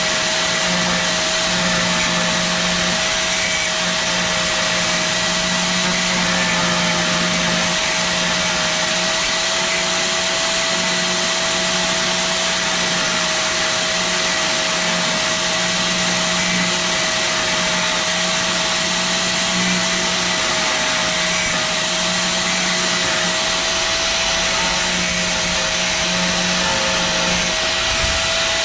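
Small Black+Decker cut-off tool running steadily with a constant high motor whine as its thin wheel grinds down protruding aluminum edges.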